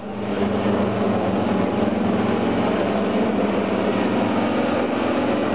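Engines of three large-scale radio-controlled model biplanes flying overhead, a steady drone of several overlapping engine tones.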